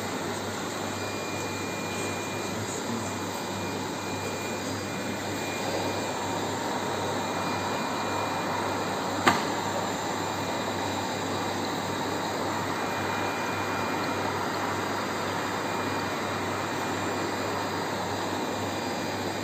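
A machine runs steadily, giving an even whooshing hiss over a low hum with a faint high whine. A single sharp click sounds about nine seconds in.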